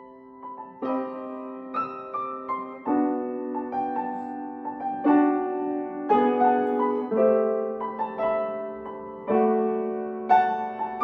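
Mason & Hamlin acoustic piano played slowly: a melody over held chords, a new chord or note struck roughly once a second, each left ringing and fading into the next.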